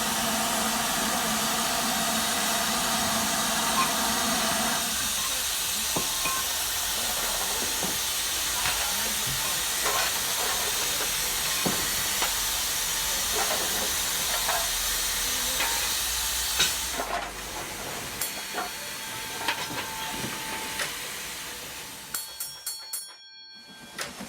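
Model steam locomotive's sound effect playing a steady steam hiss, with irregular small clicks of wheels running over rail joints. A hum under the hiss stops about five seconds in, and the hiss dies away in the last few seconds.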